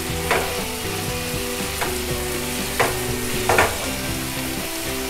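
Onions, tomatoes, green chillies and curry leaves sizzling in hot oil in a non-stick pan while a wooden spatula stirs them, with about four short scrapes of the spatula against the pan.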